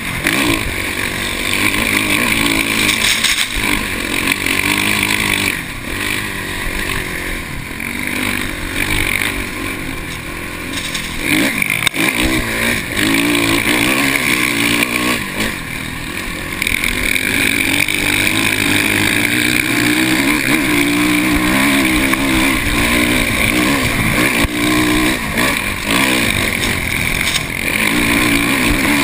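Dirt bike engine heard close from the rider's position, revving up and down with the throttle. It eases off for several seconds about a fifth of the way in and briefly again just past the middle, then pulls hard again.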